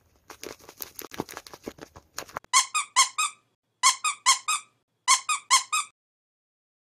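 Tape-covered paper egg squishies crinkling and crackling as fingers squeeze them, followed by three quick runs of four high squeaky-toy squeaks.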